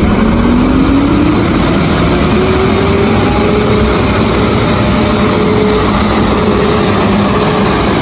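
Volvo FL road sweeper truck running with its sweeping gear working: a steady, loud rushing noise, with a tone that rises in pitch over the first three seconds or so and then holds steady.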